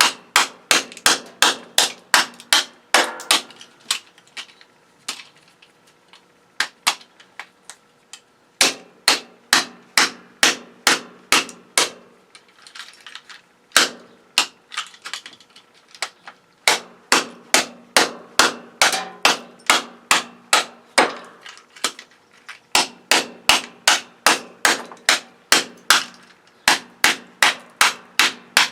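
Rapid hammer blows, about three a second, on a ganged circuit breaker to break it apart, coming in runs with short pauses between them.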